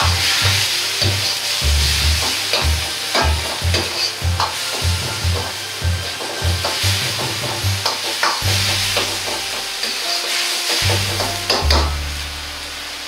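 Cabbage and ground meat sizzling in a wok while a wok ladle scrapes and knocks against the pan in a quick, even rhythm, about two to three strokes a second. The strokes thin out in the last few seconds, leaving the sizzle and a low rumble.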